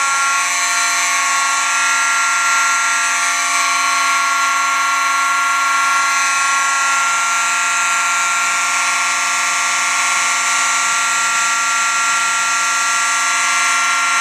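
A collection of about 38 fire alarm horns, bells, sirens and speakers sounding together: a loud, continuous wall of many overlapping steady alarm tones.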